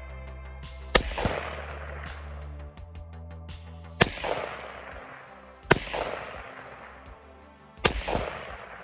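Four shots from a short-barrelled 300 Blackout rifle, fired at steel targets about 200 yards off. They come about a second in, at about four seconds, just before six and just before eight seconds, and each echoes and fades over the next second or so. Background music plays underneath.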